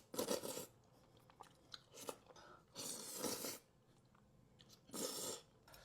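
Close-miked chewing of crunchy food in a mukbang, with four loud crunches a second or two apart, the longest near the middle, and quieter chewing between them.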